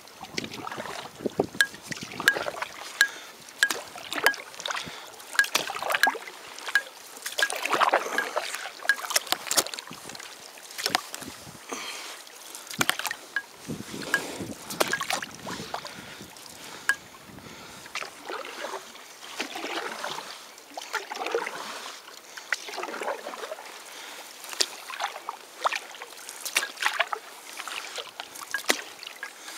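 Lake water lapping and splashing against the side of a moving canoe, with many short, sharp slaps of water against the hull.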